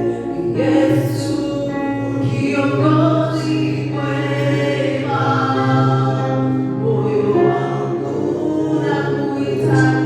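Choir singing a gospel worship song in long held notes.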